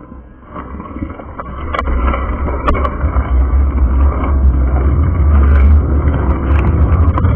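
Wind buffeting the microphone of a bike-mounted action camera while riding, a heavy low rumble that swells about two seconds in and stays loud. Two sharp knocks come just before and just after it swells.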